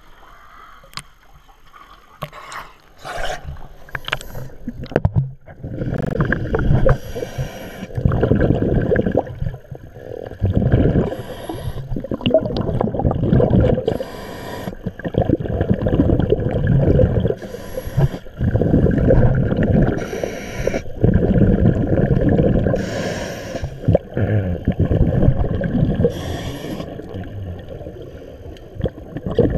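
Water noise over an underwater camera: a few light knocks, then a loud rumbling churn once it goes under, with a short sharp hiss about every three seconds in the rhythm of a diver's or snorkeller's breathing.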